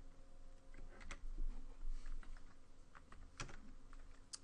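Computer keyboard being typed on in scattered keystrokes, with a few sharper key clicks about a second in, a little past three seconds and near the end.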